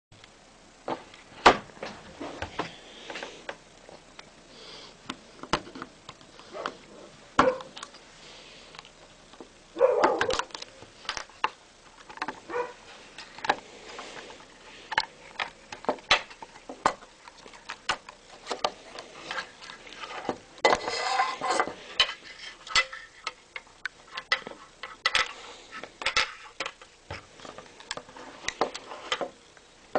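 Irregular clicks, taps and knocks of small hard objects being handled, with short bursts of scraping or rustling about ten seconds in and again near two-thirds of the way, as when an iPod is being opened and worked on with small tools.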